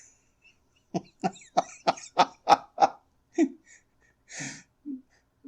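A man coughing, a rapid run of about eight short coughs in two seconds, followed by a few fainter coughs and a breath.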